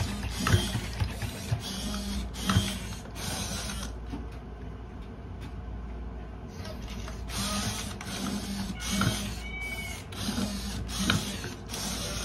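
Servo motors of an i-Cybie and a Sony aibo robot dog whirring in stop-start spells as the robots move their heads, legs and tails, with small clicks and knocks. There is a quieter stretch in the middle.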